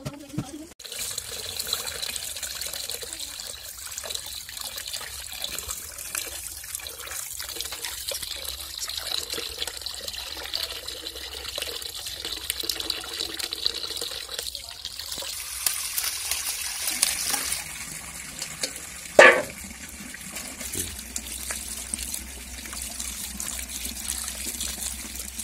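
Tap water running steadily onto raw chicken pieces as hands wash them, first in a steel bowl and then in a plastic colander. It opens with a last cleaver chop on a wooden block. One brief, loud sound stands out about three-quarters of the way through.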